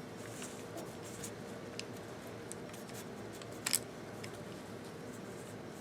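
Small scattered clicks and ticks of taped pliers turning a GoPro Hero 3+ lens in its housing, its glue just broken, with a sharper double click about three and a half seconds in.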